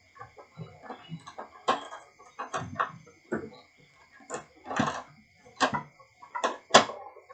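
Irregular clicks and knocks of plastic printer parts being handled and fitted back into place in an Epson L360 inkjet printer, a few sharper clicks standing out, over a faint steady high-pitched whine.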